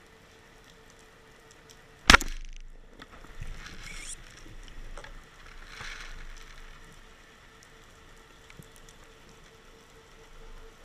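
Band-powered speargun firing underwater: one sharp crack about two seconds in, followed by fainter scrapes and knocks as the shaft and line go out.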